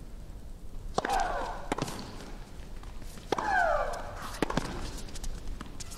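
Tennis rally on a hard court: about five sharp racket-on-ball strikes, with a high shriek that falls in pitch on every other shot as one player hits.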